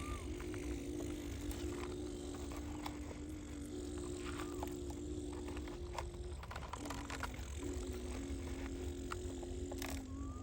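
Small electric motors and plastic gearing of a homemade toy truck or excavator running, a steady whine that steps up and down in pitch and breaks off briefly a few times, over a low rumble with scattered clicks.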